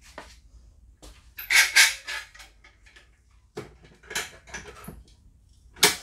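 Caulk gun with a wooden clamp jaw knocking and scraping against a shelf as it is hung up: a few bursts of clatter, then one sharp knock near the end, the loudest of them.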